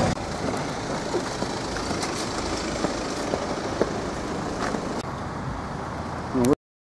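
Steady outdoor background rumble with a few faint clicks, cutting off abruptly near the end.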